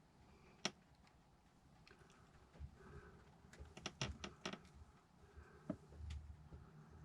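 Light clicks and taps of small parts being handled: one about a second in, then a quick cluster of clicks in the middle and one more near the end, over faint room tone.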